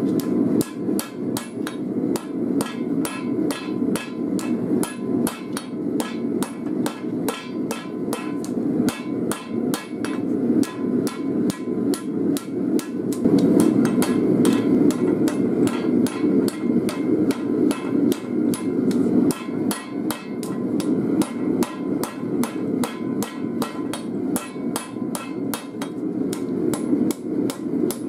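Hand hammer striking a red-hot steel file on an anvil in a fast, even run of blows, over the steady rushing noise of a gas forge burner.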